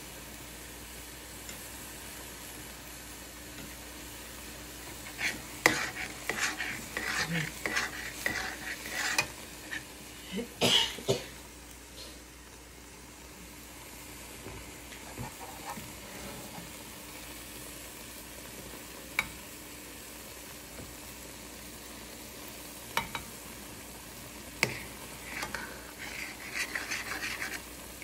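Vegetables stir-frying in sauce in a wok with a steady low sizzle. Clusters of metal scraping and clinking come about five seconds in and again near the end, as a metal spatula and ladle stir and toss the food against the wok.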